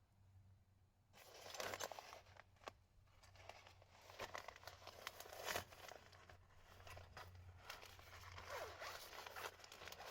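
Zipper and rustling of fabric or packaging as gear is handled, in several irregular bursts of scraping and crinkling.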